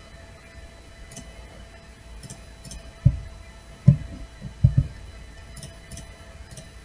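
Faint, sharp computer-mouse clicks every second or so, with four dull low thumps around the middle that are the loudest sounds.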